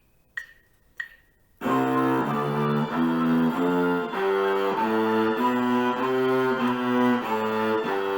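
Two short ticks, then from under two seconds in a cello plays the C major scale in its low octave, bowed notes starting on the open C string and moving up, a new note about every half second.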